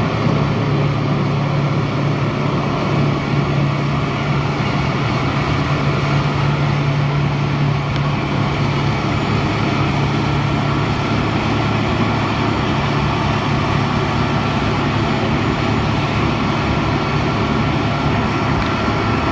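Wirtgen cold milling machine grinding the surface off a concrete deck: a loud, steady diesel hum under load mixed with the continuous grinding of the cutter drum on concrete.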